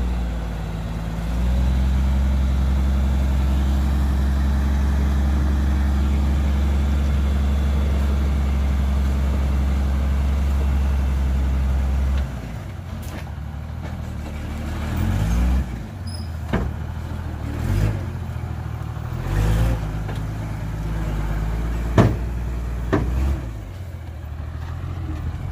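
Dump truck's diesel engine running at a steady speed, then dropping back about halfway through, followed by several short revs. A few sharp clicks or knocks sound near the end.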